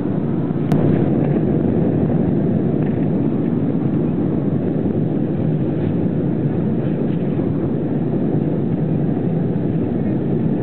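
Steady low rumble of a jet airliner's cabin noise in cruise flight, with a single sharp click about a second in.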